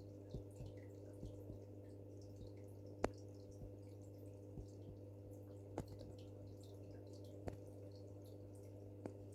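Water dripping a few times over a steady low hum, typical of aquarium equipment running beside the tank.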